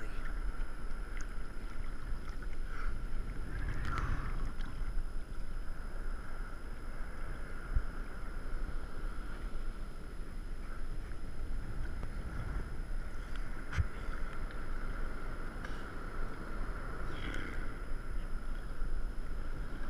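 Choppy water lapping and splashing right against a camera sitting at the water's surface, under a steady hiss of water and wind. A few light knocks stand out, about four and fourteen seconds in.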